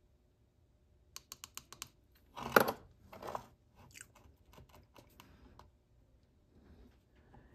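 Handling noise from loading a Colt Walker cap-and-ball revolver: a quick run of about six small clicks a second in, then a louder clatter, a second smaller one, and a few scattered light ticks.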